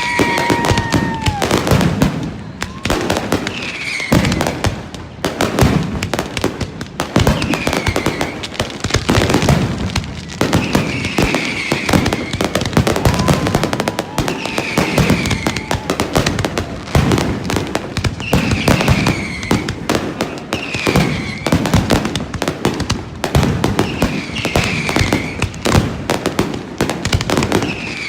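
Fireworks display: a dense, continuous barrage of bangs and crackling, with short falling whistles every few seconds.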